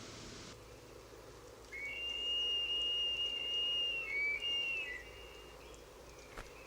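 High, thin whistled call of a bald eagle: one long, steady note of about two seconds, then two short notes, the last one falling away.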